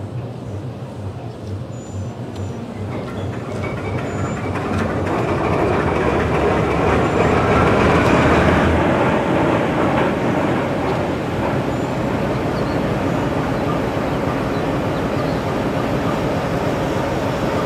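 GE B23-7 locomotive's 12-cylinder diesel engine starting up: its sound builds over several seconds, peaks about eight seconds in, then settles into a steady idle.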